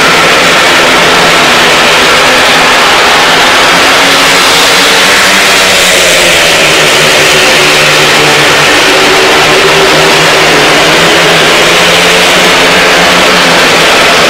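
Four 500cc speedway bikes racing, their single-cylinder methanol engines running hard and very loud, the pitch rising and falling as they go through the bends.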